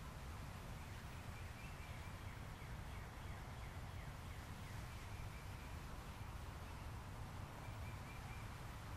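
Faint outdoor background of steady low rumble and hiss, with a few distant birds chirping now and then.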